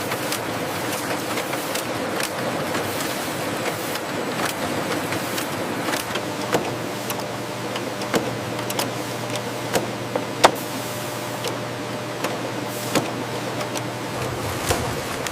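Factory production-line machinery running: a steady mechanical din with irregular sharp clicks and clacks, and a low hum that comes in about six seconds in and stops shortly before the end.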